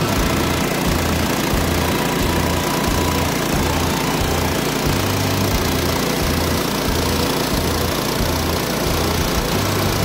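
Gas engine of a Woodland Mills HM130Max portable bandsaw mill running steadily under load as the band blade cuts through a large spruce log.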